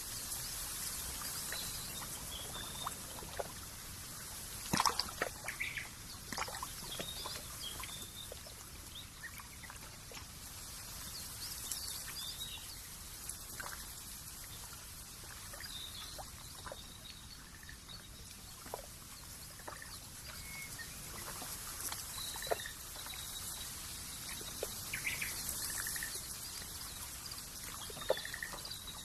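Countryside nature ambience: a steady high hiss with scattered short bird chirps and small trickling, dripping water sounds.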